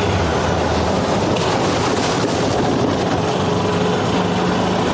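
Gas-powered golf cart's engine running steadily as the cart drives along, with a constant rush of ride noise over its low hum.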